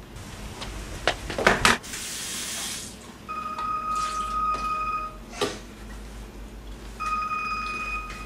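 Dishes clinking in a kitchen sink and a faucet running for about a second, followed by a steady high tone that sounds for about two seconds, stops, and starts again near the end.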